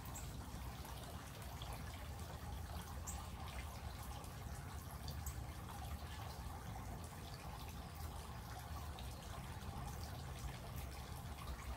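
Steady thunderstorm rain falling, with scattered drips and light taps through a constant hiss.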